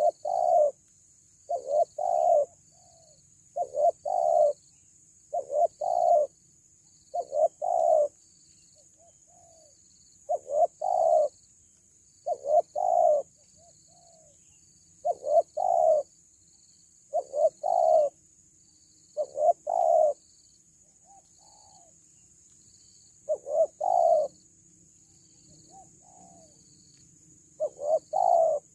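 A spotted dove (tekukur) cooing over and over. Each phrase is a quick pair of coos, sometimes with a softer trailing note, and the phrases come about every two seconds with a few longer pauses. A faint steady insect whine runs underneath.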